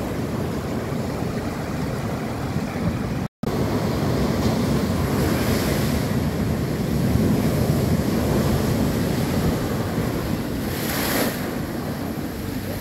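Heavy sea surf from a big swell at high spring tide breaking against a seawall and slipway: a continuous rushing of churning water and spray. The sound cuts out for an instant about three seconds in, and a brief surge of spray stands out near the end.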